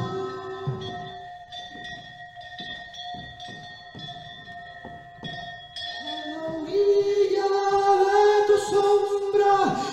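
A steady ringing drone with a string of soft low thuds for the first half, then a voice comes in about halfway, singing one long held note into a microphone over it.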